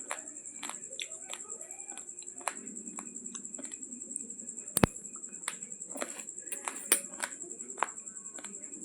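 Raw long-grain basmati rice grains crunching and cracking between the teeth while being chewed: a string of sharp, irregular cracks, the loudest about halfway through.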